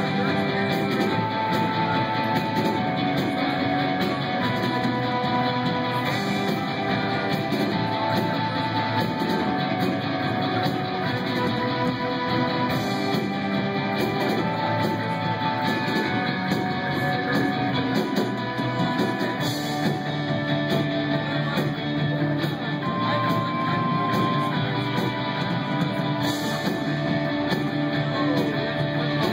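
Live band playing, led by electric guitar over a steady full backing, with single held notes sounding one after another.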